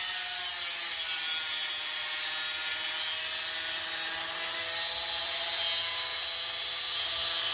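Handheld power grinder running continuously against the sheet steel of an old van part, stripping paint and rust back to bare metal. A steady whine with a rasping edge, dipping slightly in pitch about a second in as the tool bites.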